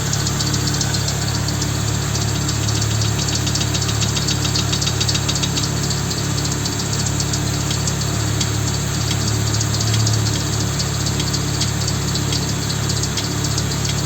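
Volvo 850 five-cylinder engine idling with a sharp, rhythmic knock or tapping over its steady hum. The knock comes rapidly, several times a second, for the first few seconds, then turns sparser and more irregular.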